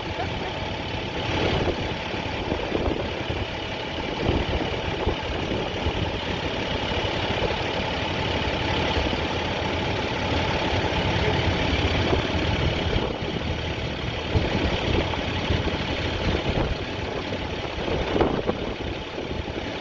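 Fire department tower ladder truck's diesel engine running steadily at idle as the truck creeps forward.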